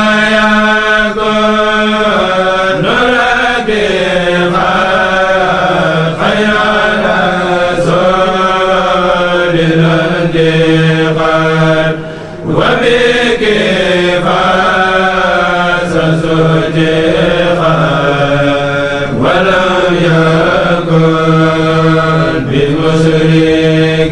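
A kourel of men chanting a Mouride khassaid in unison, unaccompanied, in long drawn-out phrases; the voices break off briefly for breath about twelve seconds in.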